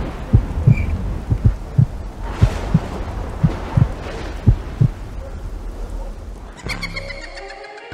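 Heartbeat sound effect: deep thumps, mostly in lub-dub pairs a little under a second apart, over a low rumble. Near the end the thumps stop and a sustained pitched drone comes in.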